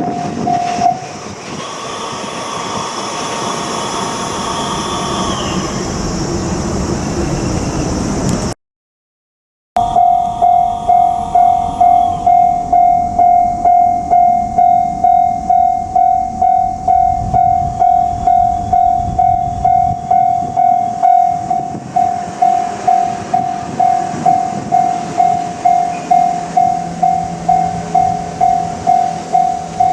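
A JR Kyushu 787-series electric train runs past with wheel-and-rail noise and a few faint squealing tones. After a cut, a level-crossing warning bell rings on and on, a little under two dings a second, over fading train noise, and a low hum of another train sets in near the end.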